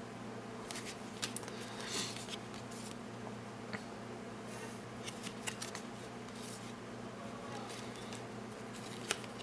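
Trading cards being handled and slid one behind another: soft scattered clicks and brief rustles of card stock, with a sharper click near the end, over a steady low hum.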